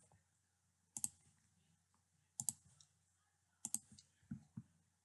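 Computer mouse clicks: three quick double clicks about a second and a half apart, then a couple of fainter clicks near the end.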